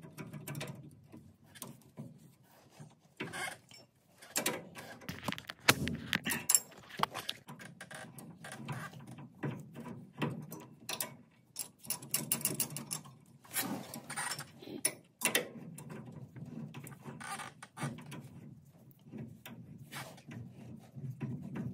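Rear disc-brake caliper and its bracket being handled and fitted over the rotor: irregular metallic clicks, taps and light clatter of steel parts knocking together, with a couple of louder knocks about six and twelve seconds in.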